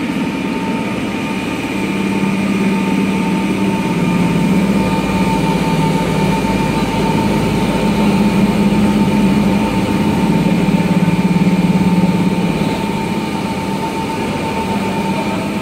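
Fiber cement board production line machinery running steadily, a loud, constant hum with a steady whine above it. The low hum grows stronger about two seconds in and eases off near the end.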